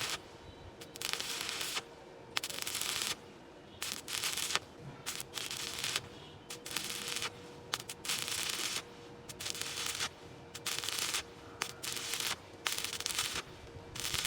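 Stick-welding arc crackling and sizzling in short bursts of about half a second to a second, the arc struck and broken again and again: an intermittent, stitch-style weld on thin square tube.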